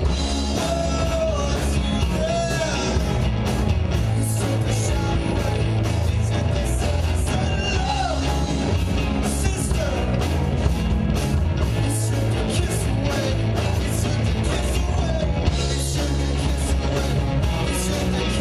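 Live rock band playing, with vocals over guitar, bass and drums, the cymbals hit steadily.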